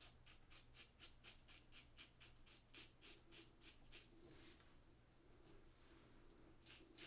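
Leaf Twig razor with a Feather blade cutting lathered stubble in short quick strokes: faint crisp scrapes about four a second. They pause about four and a half seconds in, and a few more strokes come near the end.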